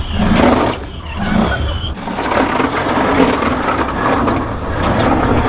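Can-Am Outlander ATV running with its rear differential grinding and crunching: the differential gears are broken.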